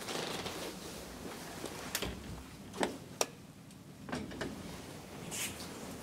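Service elevator's stainless steel sliding doors moving during the first second, followed by several sharp clicks and knocks, two of them close together about three seconds in.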